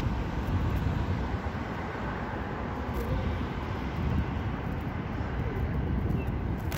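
Steady low rumble of outdoor city street noise, with no single event standing out.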